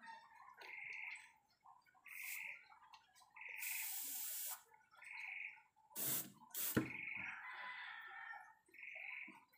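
Airbrush spraying red paint in two short hissing blasts of air, the second about a second long, followed by two sharp knocks about six seconds in. A high animal call repeats about every one and a half seconds in the background.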